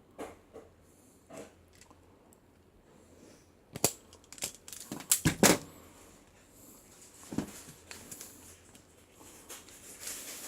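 Capri self-adjusting wire stripper clicking and snapping as it cuts and strips two-prong extension wire, with a cluster of sharp snaps from about four to five and a half seconds in and another about seven and a half seconds in.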